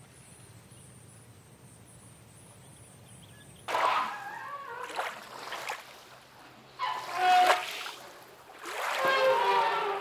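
Faint steady hum, then from about four seconds in three loud bouts of water splashing and sloshing as elephants wade in a waterhole, with some pitched calls mixed into the splashing.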